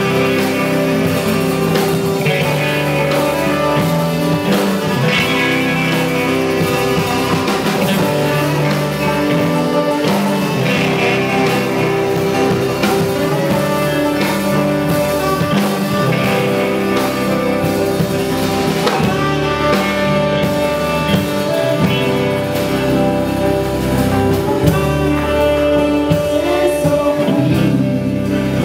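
Live band music: acoustic guitar, electric bass, electric guitar, saxophone and drum kit playing together at a steady, loud level.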